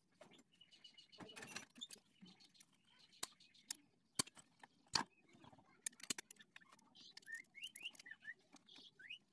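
Faint, scattered metallic clicks and taps of hand tools working on a motorcycle engine's exposed crankshaft end and cam chain area, with a few bird chirps in the background near the end.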